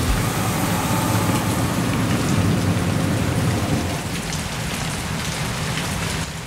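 Steady rain falling, an even hiss of drops on pavement and car. A low rumble sits under it for the first few seconds and eases off about four seconds in.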